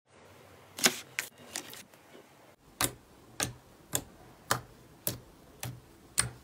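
Slime clicking and popping as fingers press and poke into it: a few irregular sharp pops, then a steady series of crisp clicks about two a second.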